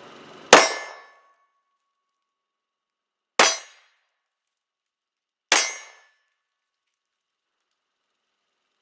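Three 9mm pistol shots from a Glock 19 Gen 3, the first about half a second in, then about three seconds and two seconds apart, each with a brief ringing tail.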